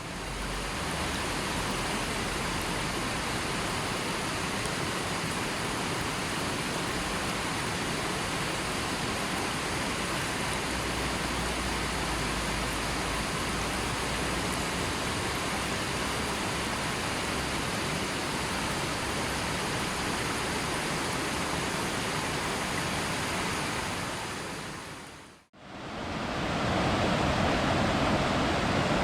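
Steady rush of flowing river water. About 25 seconds in it fades out briefly, then a fuller, slightly louder stretch of rushing water begins.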